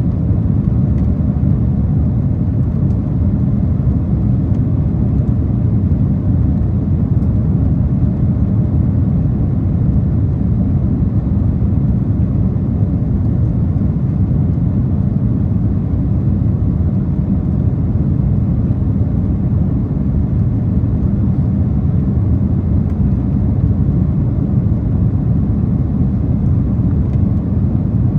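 Steady, loud low rumble of a Boeing 767-400ER's cabin in the climb, the twin turbofan engines and the airflow over the fuselage heard from an economy seat.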